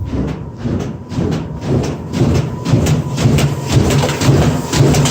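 Old agitator washing machine on its spin cycle, badly off balance from junk thrown into the tub, running with a low hum and knocking rhythmically about twice a second, the knocks getting louder.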